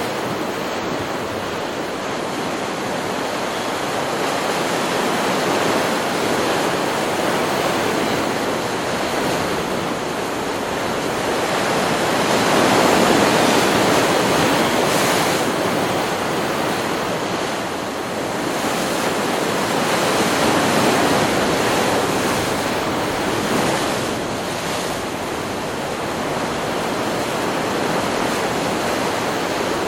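Ocean surf: a continuous wash of breaking waves that swells louder about halfway through and again a little later, then eases off.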